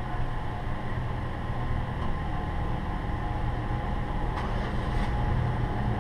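Vehicle engine idling: a steady low hum. Two faint clicks come near the end.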